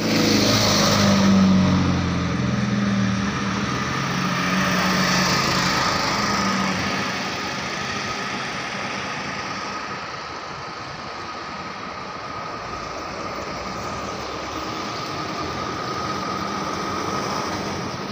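Engine and road noise of a moving vehicle, heard from on board: a low engine hum is strong for the first several seconds, then fades into a steady rushing noise with a faint, thin whine.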